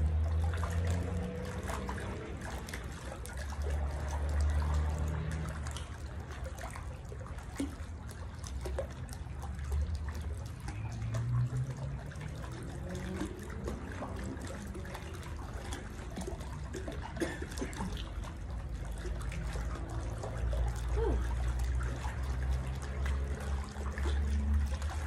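Swimming-pool water sloshing and lapping as a person jogs in place in it chest-deep, with a low rumble that swells and fades a few times.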